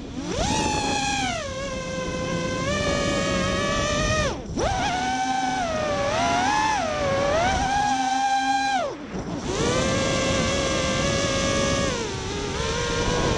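Brushless motors (Emax RS2205 2300kv) spinning 5-inch 3D props on an FPV racing quad, a high whine that rises and falls in pitch with the throttle. Twice, about four and a half and about nine seconds in, the whine drops almost to nothing and then climbs back. This fits the motors slowing through zero throttle to reverse direction for 3D inverted flight.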